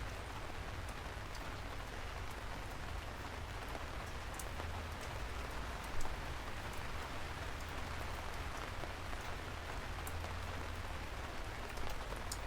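Steady rain falling, an even hiss with scattered sharp drop ticks and a steady low rumble underneath; one drop hits more sharply about halfway through.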